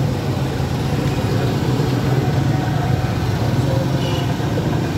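Steady low mechanical hum, like an idling engine, running unbroken at an even level.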